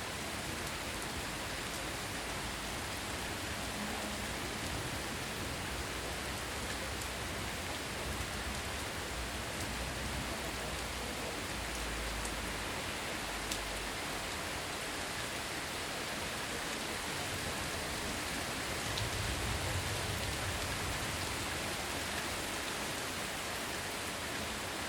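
Intense rain falling steadily, a dense even hiss of rain with individual drops ticking and spattering on surfaces. A faint low rumble swells and fades about twenty seconds in.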